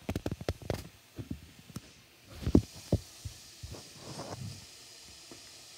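Handling noise: a quick run of small clicks and taps in the first second, then two louder knocks less than half a second apart near the middle, and a few soft thuds after.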